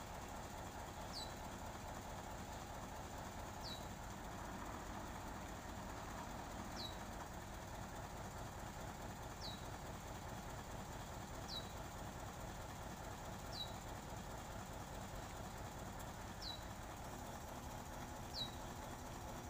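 Boom truck's diesel engine running steadily, driving the hydraulic crane as its telescopic boom is retracted. Eight short, high, falling chirps sound a few seconds apart over it.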